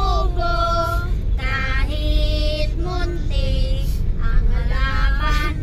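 Girls singing together inside a car, holding drawn-out notes, with a steady low rumble of the car running beneath.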